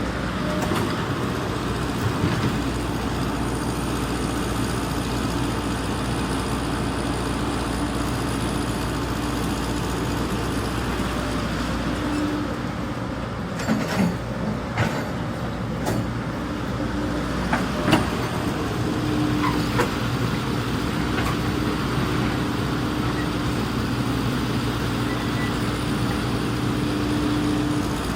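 Hydraulic excavator's diesel engine running steadily, with a handful of sharp knocks and clanks a little past the middle.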